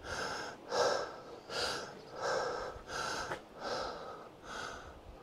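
A hiker breathing hard and rhythmically from the exertion of a steep trail, about seven breaths, one every three-quarters of a second.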